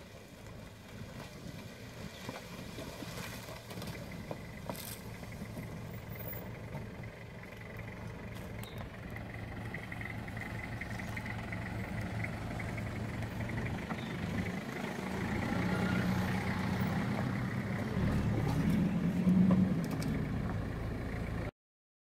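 Toyota van's engine running steadily and growing louder as the van comes closer, loudest near the end, then cut off abruptly.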